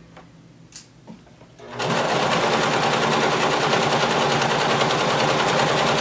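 Domestic sewing machine stitching a seam through denim: after a short pause with a faint click, the machine starts about two seconds in and runs steadily at an even speed, its rapid needle strokes blending into a continuous whir.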